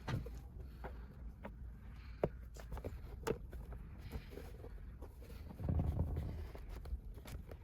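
Scattered light clicks and taps of objects being handled on a work surface, with a brief low rumble about six seconds in.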